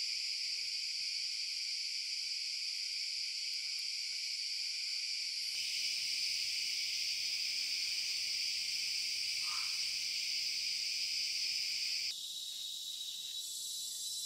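A steady, dense, high-pitched chorus of forest insects, such as cicadas or crickets. Its pitch and loudness change abruptly about five and a half seconds in and again about twelve seconds in. A single short call comes about nine and a half seconds in.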